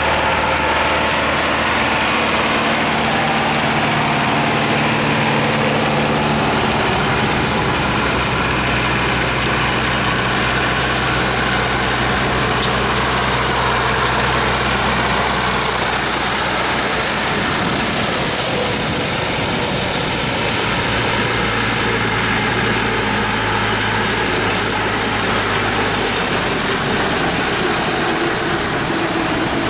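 Zetor tractor diesel engines running steadily, in several shots one after another: the engine note changes abruptly a few times, at each change of tractor, ending with a tractor driving a drum mower through grass.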